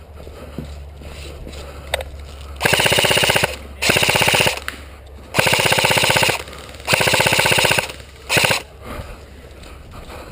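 Airsoft gun firing on full auto in five rapid bursts, the last one short.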